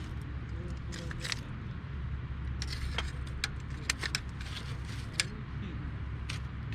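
Hardwood campfire crackling: sharp, irregular pops and snaps over a steady low rumble, with two louder pops near the middle.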